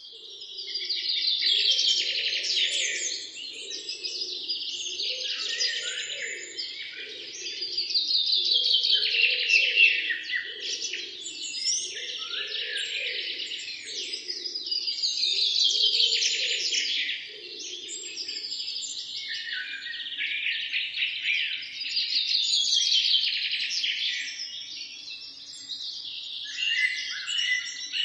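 Songbirds chirping and singing, with a song phrase that falls in pitch repeating about every six to seven seconds. Under it a fainter low-pitched pulsing sound stops about two-thirds of the way through.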